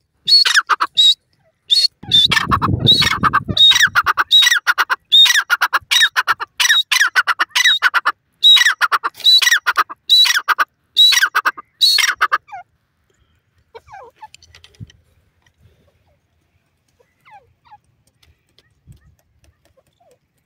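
Female grey francolin calling: rapid bursts of loud, harsh repeated notes for about twelve seconds, then the calling stops. A brief low rumble sounds around two seconds in, and only faint scattered sounds follow the calls.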